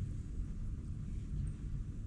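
Steady low rumble of room tone in a meeting room during a pause in speech, with no distinct events.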